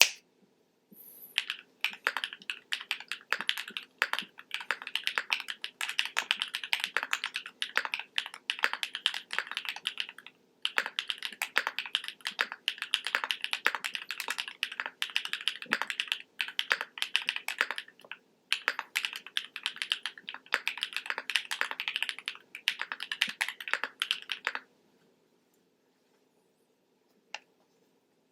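Typing on an E7V2 mechanical keyboard with lubed and filmed JWK Epsilon switches, an FR4 plate and GMK keycaps: quick runs of key clacks with a few short pauses. The typing stops about 24 seconds in, and one lone key press follows near the end.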